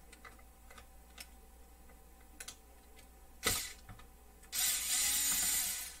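Cordless electric screwdriver backing out a small Phillips screw. A sharp click comes about halfway through, then the motor and gears whir for about a second and a half near the end.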